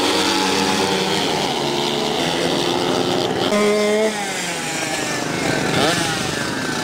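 Several small motorcycle engines running hard as the bikes race along, with engine pitches rising and falling as they rev and pass in the second half.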